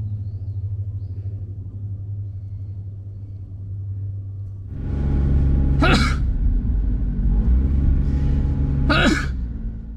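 Car engine and tyre noise heard from inside a moving car: a steady low hum that gets louder about five seconds in, with two brief rushing sweeps about three seconds apart.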